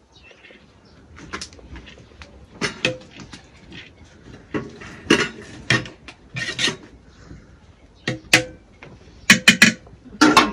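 A metal skimmer scraping and clinking against a large metal pot as cooked rice is scooped out: a string of irregular sharp clinks, some with a brief metallic ring. The loudest are three in quick succession near the end.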